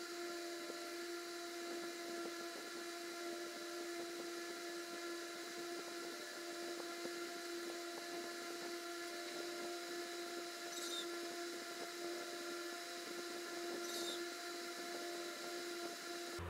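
A steady, even hum of several fixed tones over a hiss, like a small motor running, with two faint ticks near the end.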